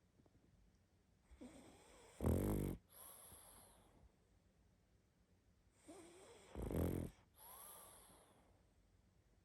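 A sleeping pug snoring: two loud snores about four seconds apart, each followed by a softer, longer out-breath. This is typical of the breed's short, flat-faced airway.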